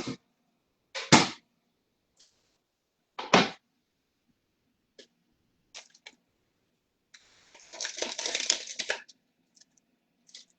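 Kitchen handling sounds: two loud knocks about two seconds apart, a few small clicks, then about two seconds of rustling near the end, over a faint steady low hum.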